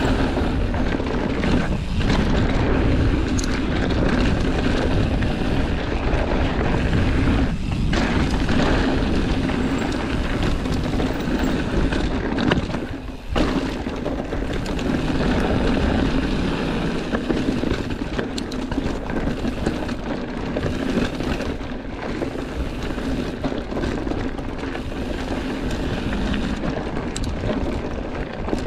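Wind buffeting the microphone of a mountain biker's camera, with the tyres rolling over a dry dirt and gravel trail. The rumbling noise dips briefly a few times.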